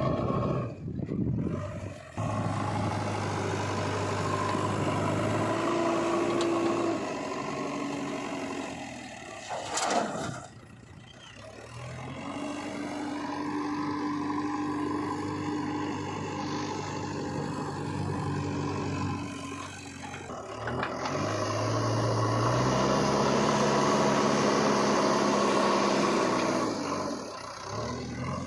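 Diesel engines of a JCB 3DX backhoe loader and tractors running, revving up and settling down in turns while the loader works, with a sharp knock about ten seconds in.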